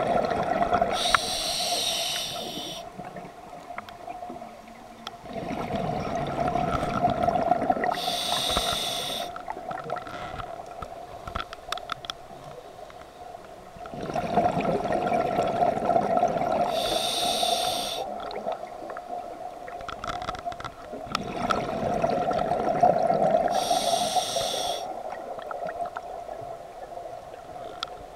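A scuba diver breathing through a regulator, heard underwater: four breaths, each a short hissing inhale followed by a longer, louder rush of exhaled bubbles.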